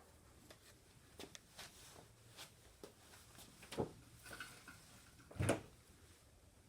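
Scattered light clicks and knocks of objects being handled, with two louder knocks, about four and five and a half seconds in.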